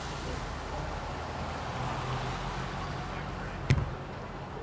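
Steady road and engine noise heard from inside a moving car, with a sharp knock about three and a half seconds in.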